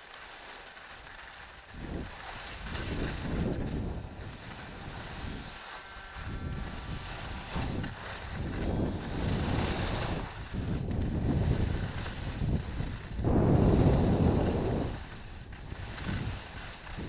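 Wind buffeting an action-camera microphone on a skier going downhill, mixed with skis hissing and scraping over the snow, in rushes that swell and fade every second or two. The loudest rush comes near the end.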